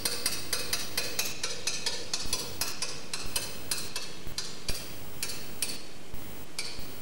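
A run of sharp, irregular clicks and ticks, several a second at first, then fewer and further apart until they stop, over a steady low hiss.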